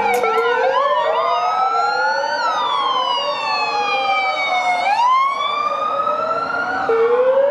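Police car sirens wailing, more than one at once, their pitches sliding slowly up and down and crossing each other. There is a quicker up-and-down sweep in the first second, and a steep rise about five seconds in.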